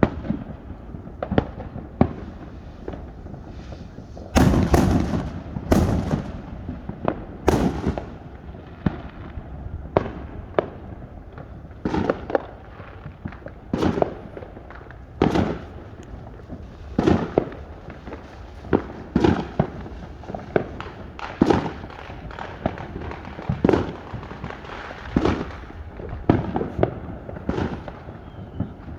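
Fireworks going off in a long, irregular series of sharp bangs, about one every second or two, with the loudest cluster of blasts a few seconds in.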